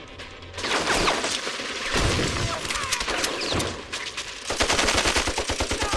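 Film battle sound effects: volleys of rifle fire with bursts of machine-gun fire, turning into a rapid, continuous machine-gun rattle for the last second and a half.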